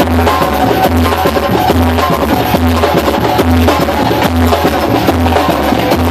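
Samba batucada drumming: deep bass-drum beats a little under a second apart under busy, rattling higher percussion.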